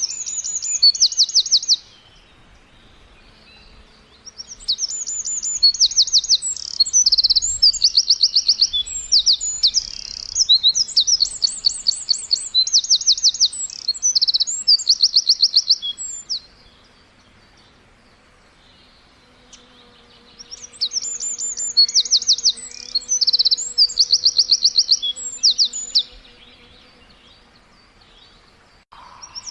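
Songbird singing in bouts of rapid, high-pitched repeated notes and trills: a short phrase at the start, a long run of song from about five seconds in to the middle, and another run in the second half, with pauses of a few seconds between.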